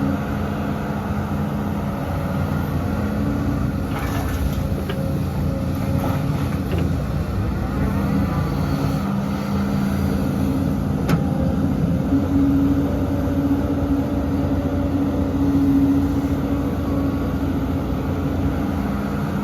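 Heavy diesel engine of earthmoving machinery running steadily under load, swelling a little past the middle, with a couple of short sharp metallic knocks.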